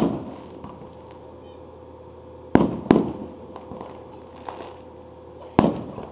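Aerial firework shells bursting: four sharp booms, one at the start, two in quick succession about two and a half seconds in, and one near the end, each trailing off in an echo.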